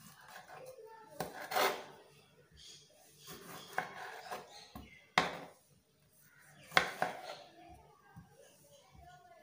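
Kitchen knife slicing through a tomato and knocking down onto a wooden board: about five sharp knocks spread out, with softer cutting sounds between them.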